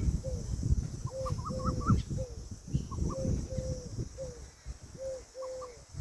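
Peahen (Indian peafowl) calling in a run of short, repeated notes, about two a second, with a low rumbling noise underneath in the first half.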